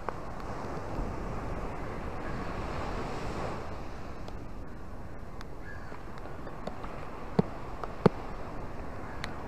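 Small ocean waves washing in over sand and rocks, a steady surf wash that swells about two seconds in and eases again. A few sharp ticks come near the end, two of them louder.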